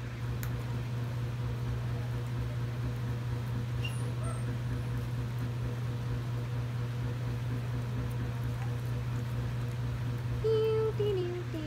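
Steady low hum through the room. About ten seconds in, a voice starts humming a tune in short held notes that step down in pitch.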